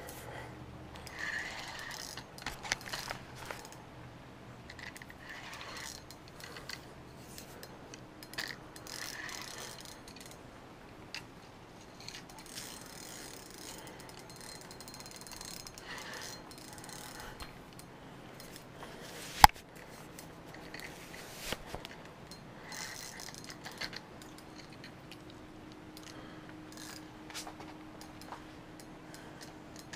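Spinning reel being cranked in short spells while a small sturgeon is reeled in, its gears whirring and clicking. One sharp click about twenty seconds in is the loudest sound.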